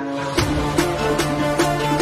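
Background music: a guitar passage gives way, about half a second in, to an upbeat track with a steady drum beat.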